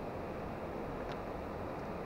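Steady rushing of river water at a weir, with one faint brief tick about a second in.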